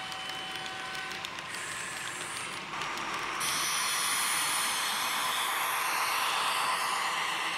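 HO-scale model train running on the track. Tank wagons click lightly over the rails at first; a little over three seconds in, a louder steady rushing noise sets in as the sound-equipped model BB 67400 diesel locomotive comes close.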